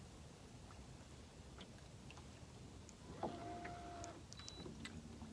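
Boat motor running low and faint while trolling, with scattered light ticks and a brief steady whine about three seconds in.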